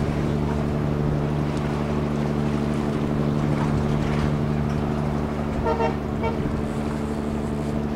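A boat's engine running steadily at an even pitch, with a brief pitched toot about six seconds in.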